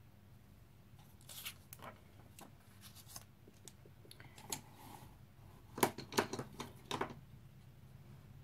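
Paper handling: a sticky note peeled off a colouring page and handled, a scatter of faint short rustles and clicks, the loudest few about six to seven seconds in.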